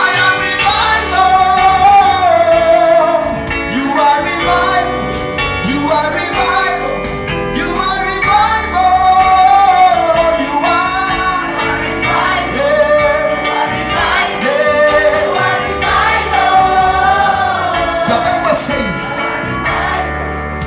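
Gospel worship song: voices singing a melody over keyboard and bass accompaniment with a steady beat, in a large hall.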